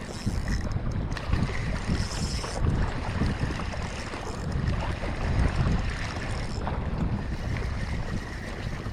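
Wind buffeting the microphone over water sloshing against a small boat.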